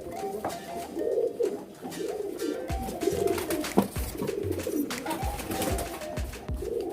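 Many domestic pigeons cooing over one another in a small room, with a few short low thumps in the second half.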